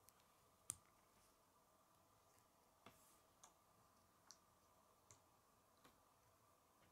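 Small plastic Lego pieces clicking and tapping as fingers handle them and press them together: about seven short, sharp clicks spread out, the loudest under a second in, over a faint steady hum.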